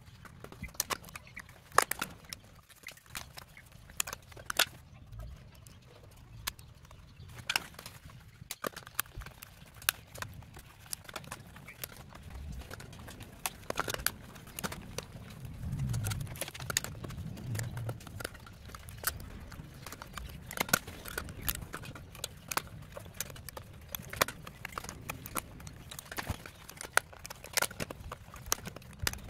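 Irregular clicks and knocks from a rigid orange plastic cover on a BYD Atto 3 blade battery pack being prised loose and shifted by gloved hands, with a brief low rumble of handling in the middle.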